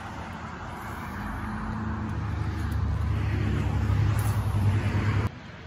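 A motor vehicle's steady engine and road noise, a low hum growing louder over several seconds, then cut off abruptly near the end.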